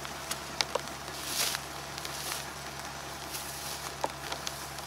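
Hoe scraping and chopping into soil, with earth pattering onto plastic mulch sheeting: scattered sharp ticks and a soft swish about a second and a half in.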